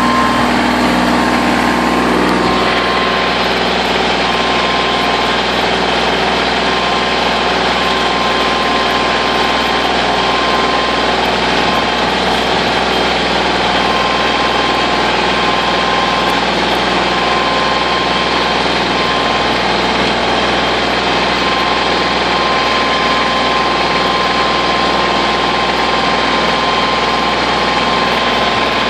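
Kubota L2800 tractor's three-cylinder diesel engine running steadily under load while pulling a two-bottom plow through the soil.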